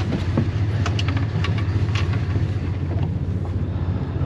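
Boat engine running steadily at low revs, a constant low hum, with a few light clicks and knocks over it.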